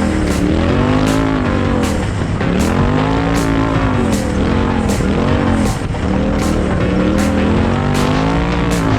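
Side-by-side UTV engine running hard at race pace, its pitch rising and falling again and again as the throttle comes on and off. Background music with a steady beat plays under it.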